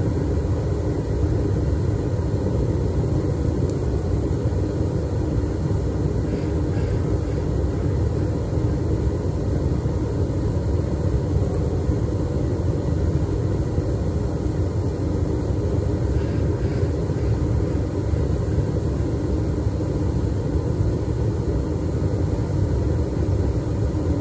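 Propane burner firing a homemade foundry furnace, running with a steady, deep rushing noise that does not let up.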